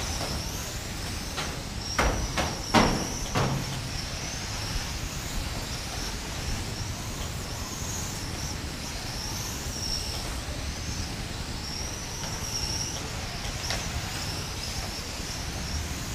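Several electric radio-controlled racing cars running laps on a carpet track, their motors whining high and rising and falling over and over as they speed up and slow down. A few sharp knocks come about two to three and a half seconds in.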